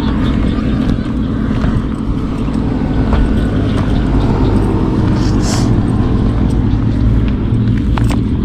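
A steady, loud, low drone of a running engine, unchanging throughout.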